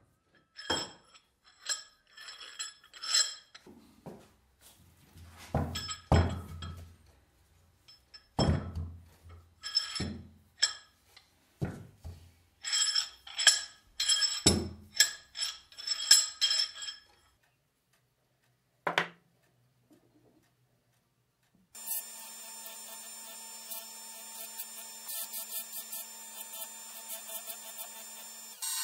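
Polished steel vise parts (screw, handle and spring) clinking and ringing against each other as they are handled and fitted together, in short clusters of knocks. About three-quarters of the way through, a bench machine's spinning wheel starts running steadily.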